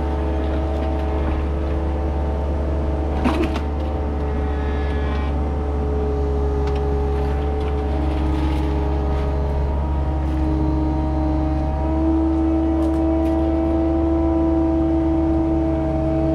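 Skid steer running under load, a steady low engine drone with a whine that steps in pitch a few times. A single knock about three seconds in.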